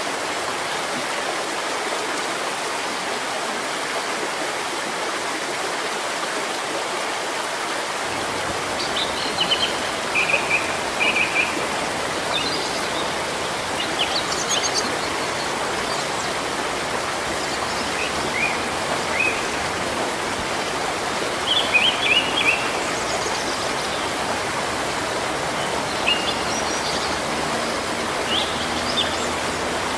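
Steady rain falling on foliage, a continuous even hiss. From about nine seconds in, birds chirp in short, scattered calls over the rain.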